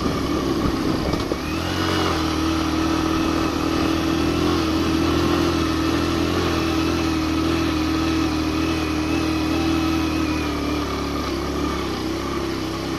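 Suzuki GN 125's single-cylinder four-stroke engine pulling hard uphill in second gear with a passenger aboard, held at high revs. The revs climb about a second in, hold steady, then sag a little near the end as the bike labours on the climb at high altitude.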